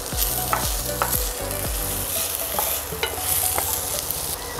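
Minced garlic and ginger sizzling in a stainless steel frying pan, with a spatula stirring and scraping across the pan bottom in repeated strokes.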